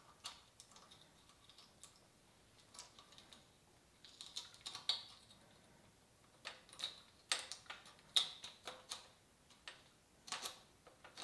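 Irregular small clicks and taps of a Rohloff Speedhub's external shift pulley and its shift cables' end fittings being handled and fitted into the plastic cable box. The clicks come denser and sharper in the second half.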